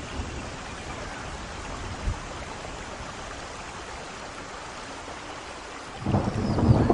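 Steady rain falling in a thunderstorm. A sudden, much louder low rumble sets in near the end.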